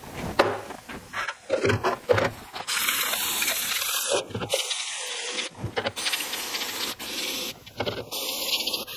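Aerosol cleaner sprayed through its straw onto steel oil-pump gears in a plastic cup, hissing in long bursts with a few short breaks. In the first couple of seconds the gears clink and knock as they are handled.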